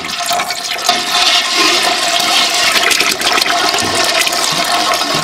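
White vinegar poured in a steady stream into a pot of hot milk, splashing loudly throughout: the acid being added to curdle the milk into cheese curds and whey.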